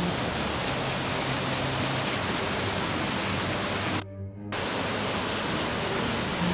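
Waterfall in high flow after rain, a steady rush of falling water. About four seconds in, the sound cuts out abruptly for about half a second.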